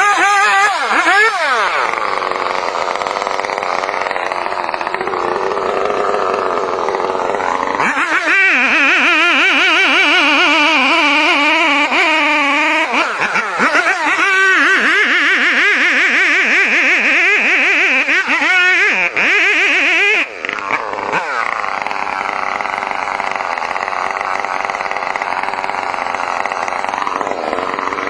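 Chainsaw engine running and cutting, its pitch rising and falling again and again as it revs and bogs under load, with a short drop about twenty seconds in.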